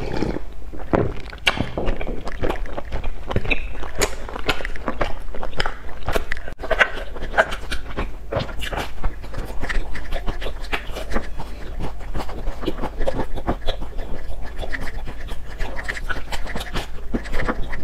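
Close-miked chewing of a soft filled pancake: a continuous run of irregular wet mouth clicks and smacks.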